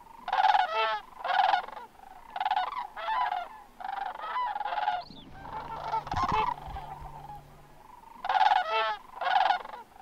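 Greater sandhill cranes calling in flight: a series of short rolling, rattling bugle calls, often in quick pairs, from a flock coming in to roost.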